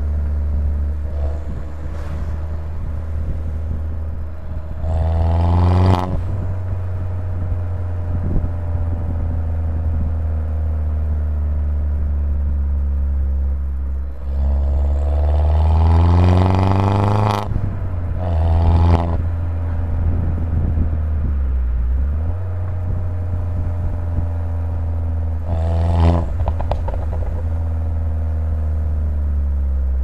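Cabin sound of a tuned Mini Cooper R56 John Cooper Works, whose 1.6-litre turbocharged four-cylinder breathes through an Akrapovic downpipe, driving on a steady low drone with repeated hard pulls. The engine note rises sharply about five seconds in, again in a long pull from about fourteen to seventeen seconds with a short one right after, and once more near twenty-six seconds, each rise cutting off abruptly. Near the end the revs fall away.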